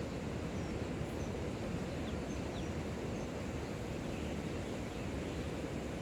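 Steady low outdoor background rumble with a few faint, short, high chirps in the first few seconds.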